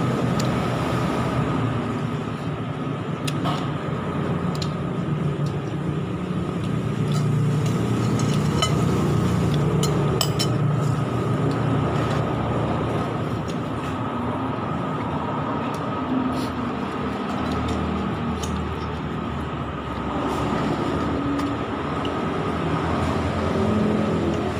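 Steady low rumble of road traffic, with a constant high hum and a few faint clicks over it.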